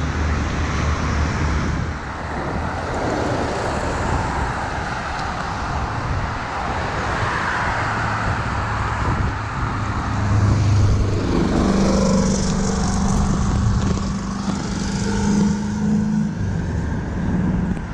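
Road traffic, cars passing on a busy waterfront road. A steady low hum joins about eleven seconds in and fades out after about five seconds.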